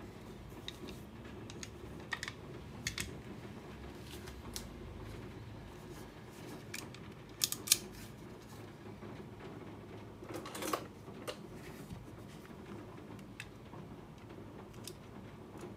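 Scattered clicks and taps of metal and plastic parts being handled while a WE Walther P38 airsoft pistol's frame is taken apart. There are two sharper clicks in quick succession about halfway through, and a short scraping rattle a few seconds later.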